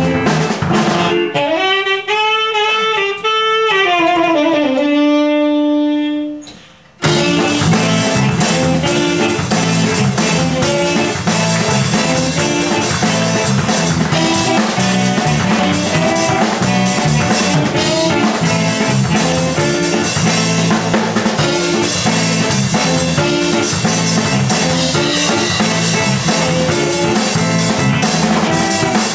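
Live jazz quartet of drums, guitars and saxophone. About a second in the band drops out, leaving a lone saxophone line that fades on a held note; about seven seconds in the full band comes back in at once and plays on.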